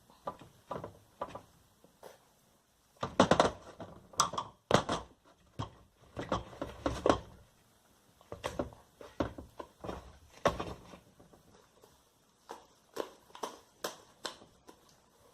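Glue-and-borax slime being kneaded and stretched by hand: irregular wet squishes and small sticky pops in clusters, with short quiet gaps between them.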